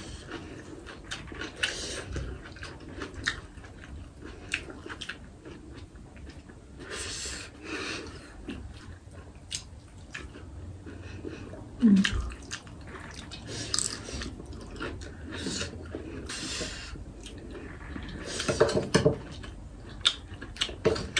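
People chewing and smacking while eating rice and vegetables by hand: a steady run of small wet mouth clicks and squishes, with one brief louder low vocal sound about halfway through.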